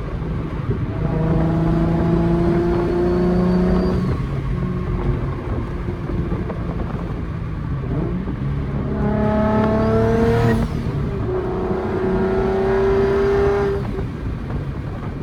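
Turbocharged Nissan 350Z's V6 accelerating hard in three pulls, the engine note climbing steadily in each, with a turbo whistle rising in pitch alongside. The whistle is highest about ten seconds in and stops abruptly when the throttle lifts.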